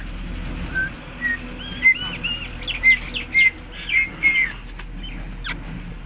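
Rose-ringed (ringneck) parakeet calling: a quick series of short, sharp, high chirps, starting about a second in and running for about three and a half seconds, the loudest in the middle.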